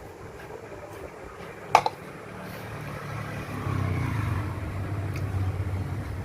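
A low engine rumble that grows louder about three and a half seconds in, with one sharp knock a little under two seconds in.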